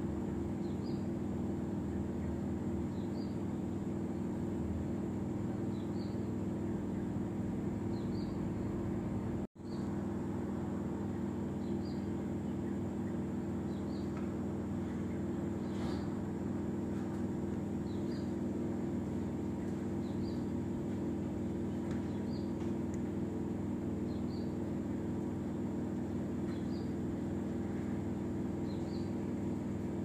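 A steady low mechanical hum with a thin high whine above it, and a short high chirp repeating every two seconds or so. The sound cuts out for an instant about nine and a half seconds in.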